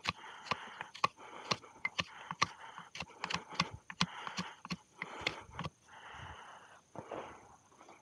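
Hoof knife paring the sole of a horse's hoof: short scraping strokes, each with a sharp click, about two a second. The clicks stop a little past halfway, and a few softer scrapes follow.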